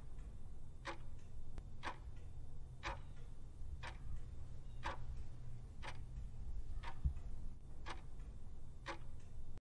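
Clock-style ticking timer sound effect, one sharp tick a second, ten ticks in all, over a low steady hum, counting down the time allowed to answer a puzzle.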